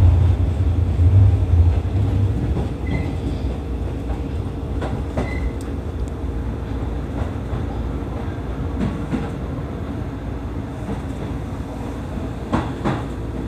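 A Seibu 30000 series electric train heard from inside the cab, running into a station. A heavy low rumble in the first couple of seconds eases into quieter, steady running noise as the train slows, and the wheels click sharply over points and rail joints a few times, with a pair of clicks near the end.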